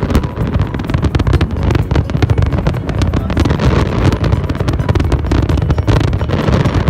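Fireworks going off in rapid succession: a dense, continuous run of bangs and crackles over a steady low rumble.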